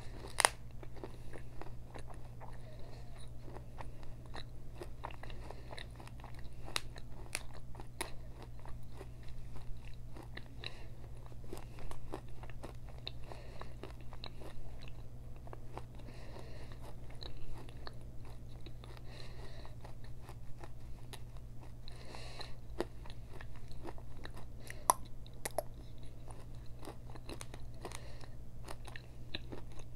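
Close-miked crunching and chewing of pieces of Mexican clay pot: repeated sharp crisp crunches as the hard pieces are bitten and ground between the teeth, over a steady low hum.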